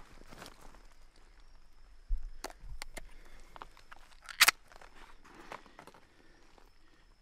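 A tin can being opened by hand among soft rustling: a dull knock, a few sharp clicks, then one loud, sharp crack about halfway through as the lid comes open.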